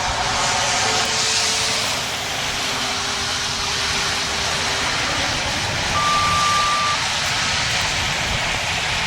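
Two pairs of steady electronic tones in sequence, the pattern of two-tone radio paging: a short tone stepping down to a longer, lower one, then about six seconds in a short tone stepping up to a higher held one. Under them, continuous outdoor wind and noise.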